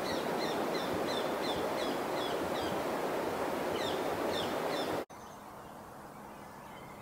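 Steady rush of weir-stream water with a small bird calling over it in a quick series of short, high notes, about three a second. The sound cuts off suddenly about five seconds in, leaving a much quieter background.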